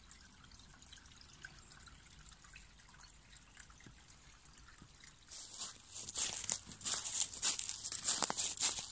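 A shallow woodland stream trickling faintly over stones; from about five seconds in, dry fallen leaves crunching and rustling in irregular crackles, louder than the water.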